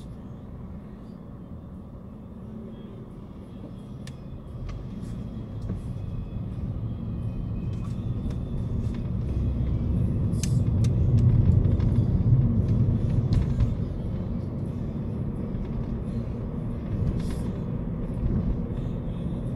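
Car road and engine noise heard inside the cabin: a steady low rumble that grows louder as the car pulls away from a standstill and gathers speed, then settles to an even level at cruising speed.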